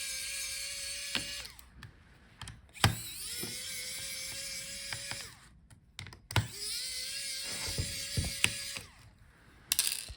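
Small electric screwdriver running in three bursts of about two seconds each, a steady whine as it backs out the laptop's hinge screws, with light clicks and knocks of screws and tool between bursts.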